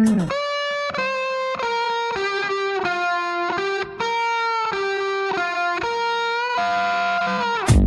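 Background music: a lone electric guitar plays a slow melody of held notes with no drums, sliding down in pitch near the end.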